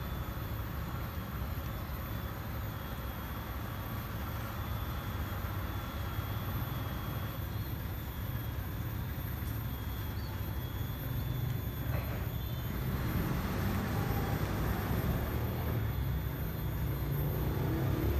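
Steady low rumble of road traffic, growing a little louder in the second half, with a faint thin high tone running over it.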